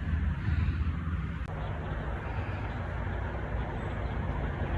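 Steady low outdoor background rumble with no distinct clicks or knocks.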